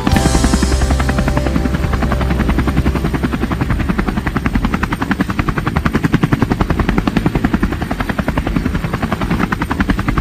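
Tour helicopter's rotor chopping with a rapid, even beat.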